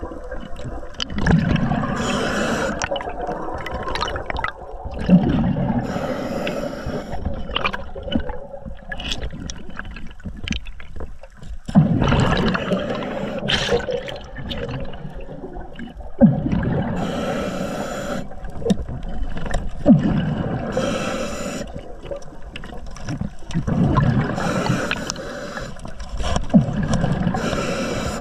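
Water gurgling and sloshing around a camera in the water, with a diver's breathing surging every few seconds.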